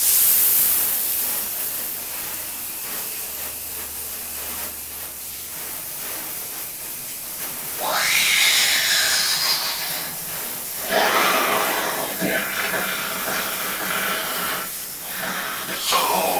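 Water from a hose spraying hard onto a desktop computer tower: a steady hiss of spray, with louder surges where the sound sweeps in pitch about eight and eleven seconds in and again near the end.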